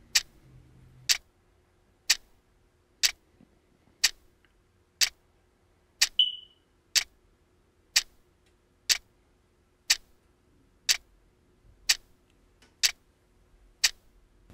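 Clock ticking steadily, about one tick a second. A brief high tone sounds once, about six seconds in.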